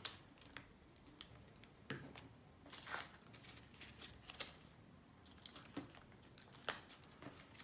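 Faint, scattered rustles and light taps of folded paper being handled and pressed down as a paper bow is fitted onto a paper origami bear.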